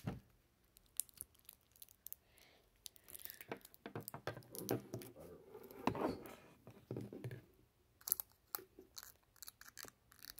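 Crinkling, tearing and clicking of plastic packaging as a tub of bouncing putty is worked open by hand, with scattered handling noises.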